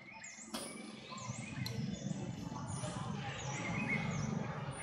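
Birds chirping: short, high calls repeated throughout, over a low rumbling noise that grows louder about a second in.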